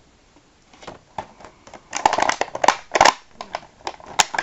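Clear plastic blister packaging of a toy crinkling and crackling as it is handled, starting about two seconds in after a few faint clicks.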